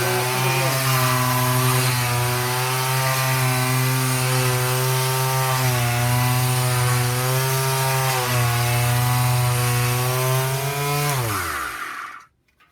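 Electric orbital finishing sander running at full speed on a wooden board, fitted with sheet sandpaper: a steady motor hum whose pitch wavers slightly, under the hiss of the abrasive on wood. Near the end it is switched off and winds down with falling pitch until it stops.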